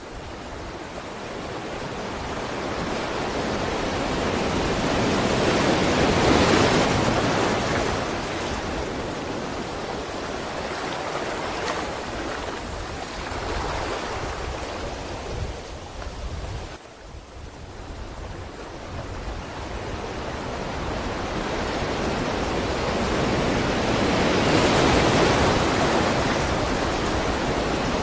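Sea waves breaking and washing ashore. The surf swells to a peak about six seconds in, falls off to a brief lull past the middle, and builds to a second peak near the end.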